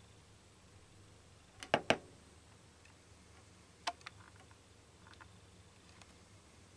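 A few sharp clicks over a faint steady low hum: a close pair of loud clicks just under two seconds in, another pair near four seconds, then a couple of fainter ones.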